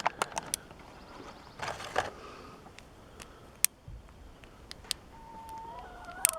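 Scattered light clicks and a short crinkle of plastic as a freshly unboxed action figure and its packaging are handled. From about five seconds in, a hen calls faintly with a few drawn-out notes.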